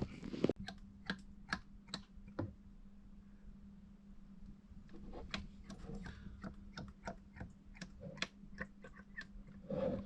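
Scattered light clicks and taps from hands handling the oil container and filler while getting ready to refill the pressure washer engine's crankcase. There is a flurry in the first couple of seconds and another run from about halfway to near the end, over a faint steady low hum.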